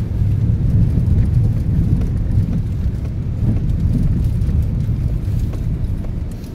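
Car driving along an unpaved dirt road, heard from inside the cabin: a steady, loud low rumble of engine and tyres, with faint scattered ticks over it.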